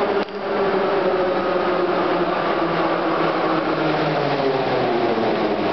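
Kryukiv-built metro train arriving at the platform: a loud steady rush of wheels and running gear, with a motor whine that slowly falls in pitch as the train slows.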